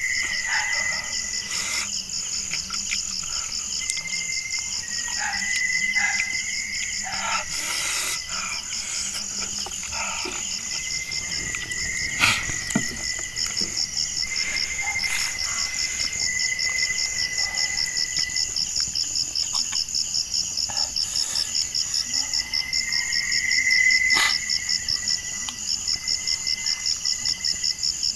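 Crickets chirping in a fast, steady pulsing trill, with a lower-pitched trill that starts and stops every few seconds. A few short clicks, as of eating and handling the squash, sound now and then.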